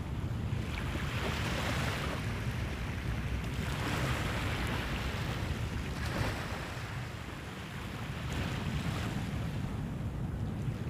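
Small waves washing onto a sandy shore, the hiss swelling and fading every couple of seconds, over a low rumble of wind on the microphone.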